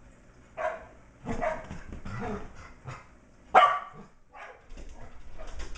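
Shetland sheepdogs barking during play: a series of about six short barks, the loudest a little past halfway.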